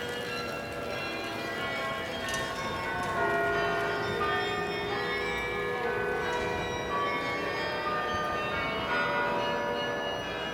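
Church bells of St Peter's in Leuven ringing: many bells of different pitches struck one after another, their tones overlapping and ringing on.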